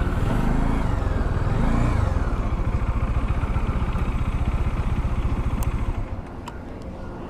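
Bajaj Dominar 400's single-cylinder engine running while riding, with fine, even pulsing and the pitch rising and falling in the first two seconds as the revs change. It drops quieter about six seconds in.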